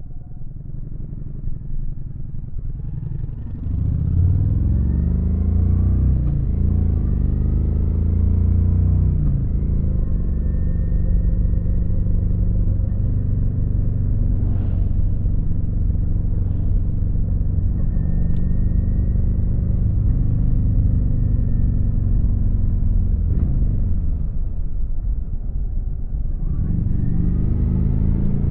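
Kawasaki VN900's V-twin engine on the move, pulling up through the gears with a couple of shifts in the first several seconds, then running steadily at cruising speed. Near the end the engine eases off and then picks up again.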